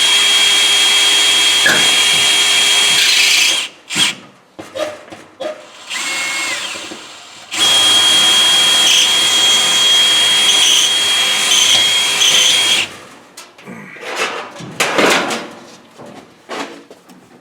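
Electric drill with a 3/16-inch bit drilling a grease hole into a Frigidaire dryer's rear panel just above the rear bearing cup: a steady high whine that stops about three and a half seconds in, then a second run of about five seconds. Clicks and knocks of handling in the pauses and near the end.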